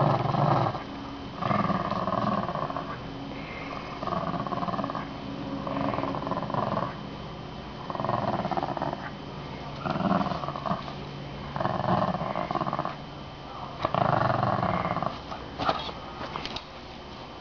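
Small terrier-mix dog play-growling while tugging a rope toy: about eight rough growls, each about a second long, coming every second and a half or so. The growling is part of a tug-of-war game, not aggression.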